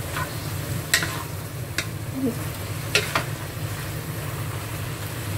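Bok choy being stirred in a nonstick wok with a wooden spatula, the shallow cooking liquid sizzling steadily. The spatula knocks sharply against the pan about a second in, just before two seconds, and twice close together around three seconds. A steady low hum runs underneath.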